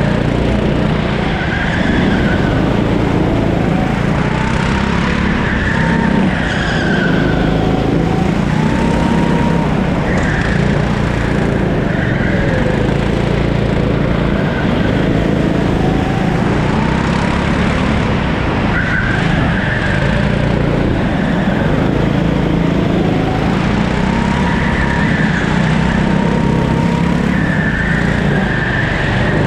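13-horsepower Rimo rental kart driven at racing pace. The engine revs rise and fall again and again between corners and straights, with the tyres squealing at times through the turns.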